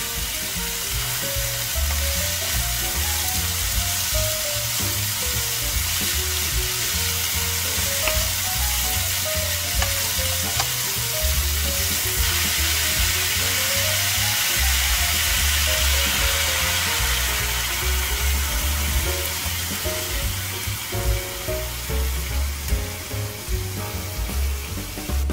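Chayote strips, tomatoes and mashed tofu sizzling steadily in a hot frying pan while being stirred, with melodic background music and a bass line underneath.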